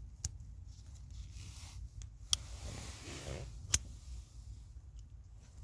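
Three sharp clicks spread over a few seconds, with faint rustling and scraping between them: small metal screws and a T25 Torx driver being handled and fitted by hand.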